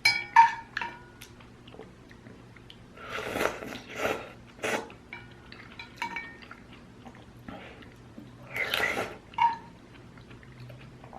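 Person eating instant ramyun noodles: several noisy slurps with chewing between, and utensils clinking against the bowl with a short ring, mostly near the start and about six seconds in.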